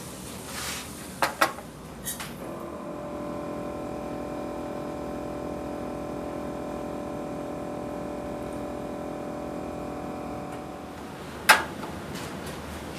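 A few clicks and knocks, then a small electric appliance hums steadily for about eight seconds and stops, followed by one loud click.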